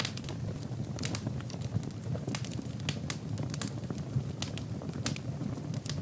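Wood logs burning in a fireplace: sharp crackles and pops at irregular intervals, a few each second, over a low, steady rush of flames.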